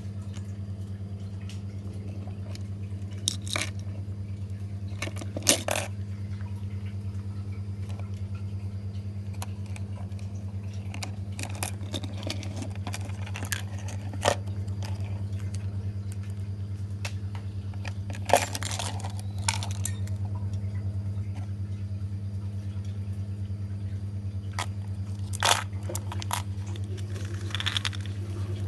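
Hard plastic fishing lures and their steel treble hooks clicking and clinking now and then as they are handled, over a steady low hum.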